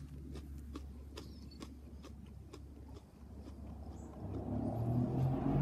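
A person chewing a small, thick-skinned chilli pod, with faint crunching clicks. From about three seconds in, a low hum grows steadily louder.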